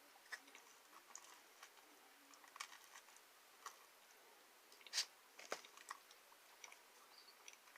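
A person chewing pepperoni pizza close to the microphone: scattered wet mouth clicks and smacks, the loudest about five seconds in.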